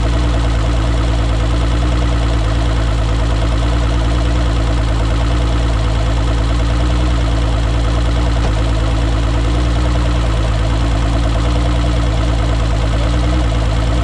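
Mercury Optimax 225 two-stroke V6 outboard idling steadily at an even speed, running on its rebuilt vacuum lift pump.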